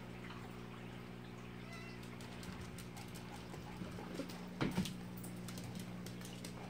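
Siamese cat giving short meows over a steady low hum. Two brief knocks come close together about two-thirds of the way in.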